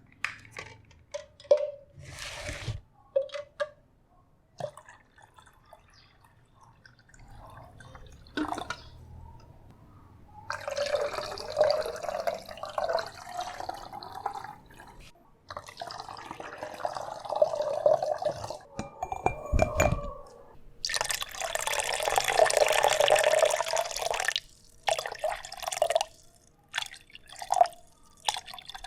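Water poured into a glass: a few drips and small knocks at first, then three separate pours of a few seconds each, the last the loudest, followed by short splashes and drips.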